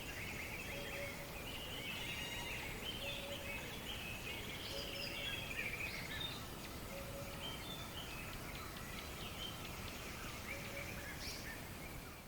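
Several birds chirping and trilling over a steady outdoor background hiss, with a short, lower note repeating every second or two.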